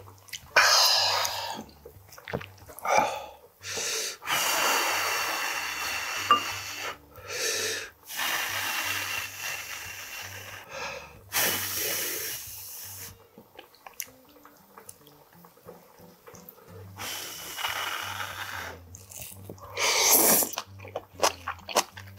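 A person eating hot stew up close: long breathy blows and slurps of one to three seconds each as hot greens and broth are cooled and sucked in. Short chewing and clicking sounds come between them.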